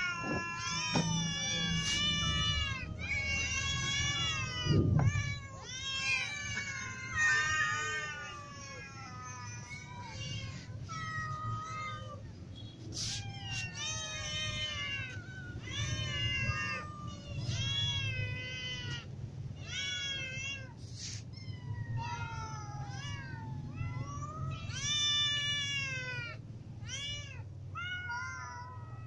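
A large group of domestic cats meowing over one another without pause, many short calls rising and falling in pitch: hungry cats begging to be fed.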